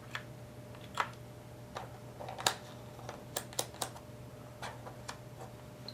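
Irregular light clicks and taps as the parts of an opened-up cordless drill are handled, a cluster of quick clicks a little past halfway, over a steady low hum.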